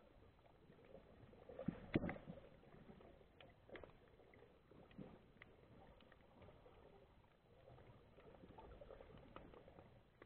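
Near silence as heard by a camera in an underwater housing moving through kelp: a low muffled murmur with a few faint clicks and knocks, the loudest about two seconds in.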